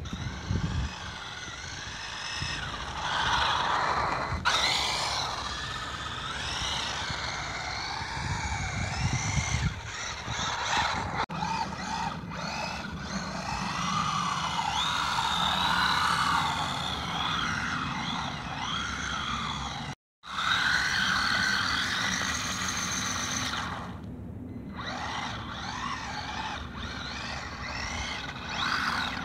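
Electric motor and gearbox of a WLtoys A959B RC buggy whining, the pitch repeatedly rising and falling with the throttle as its four wheels spin and slide on ice. The sound cuts out completely for a moment about twenty seconds in.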